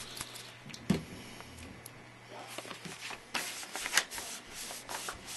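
Paperback book rubbed like a towel over something wet: uneven rustling and scuffing with a few clicks, a sharper knock about a second in and a busier patch of rubbing after about three seconds.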